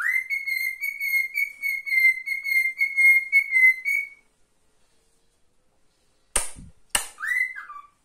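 Male cockatiel whistling one long warbling note held at the same pitch for about four seconds. After a pause come two short harsh sounds and a brief chirp that rises and then falls.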